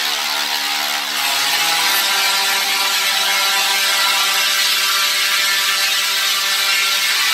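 Two Tesla coils firing, their spark discharges making a loud, steady buzz at a fixed pitch with a crackling hiss.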